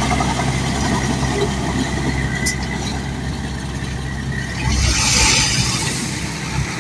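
Bulldozer's diesel engine running steadily, with a short click about two and a half seconds in and a louder rush of noise about five seconds in.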